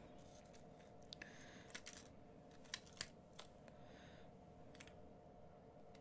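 Near silence with a faint steady hum, broken by a few faint, sharp clicks and taps as strands of strung crystal beads are handled and laid out on a mat.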